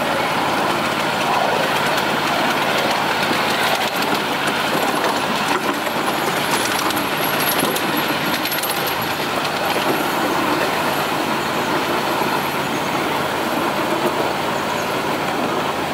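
Ride-on miniature railway train running steadily along the track: wheels rolling on the rails along with the locomotive's running noise. A thin, high squeal comes in for a few seconds near the middle.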